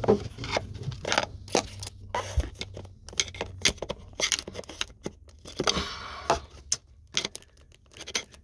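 Screwdriver tip tapping and scraping against the zinc anode cover on a Yamaha TR-1 engine block, a string of irregular sharp metallic clicks with a brief scrape about six seconds in, as the anode is pried at to work it loose.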